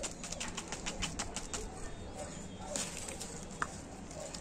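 Dry potting substrate rustling and crackling as a succulent is set into a new pot and filled around, a run of quick irregular crackles with a short lull about two seconds in.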